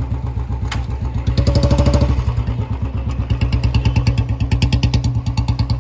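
Royal Enfield Bullet's single-cylinder engine running at low speed with an even, quick thump while the bike is ridden through a tight, slow turn. It grows louder for a moment about a second and a half in.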